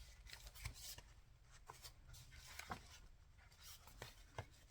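Faint handling of paper journal pages: light rustling with a few soft taps and clicks.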